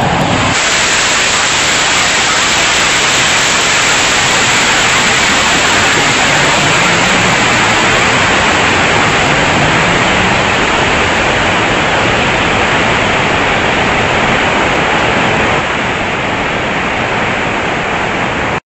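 Steady, loud rushing noise of air buffeting a high-power rocket's onboard camera as the rocket climbs after launch. It eases slightly near the end, then cuts off suddenly.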